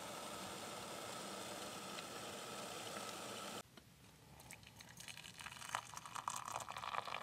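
Kettle on a small stove giving a steady hiss as it steams at the boil, cut off suddenly about three and a half seconds in. Then hot water is poured from the kettle into a mug, splashing and growing louder toward the end.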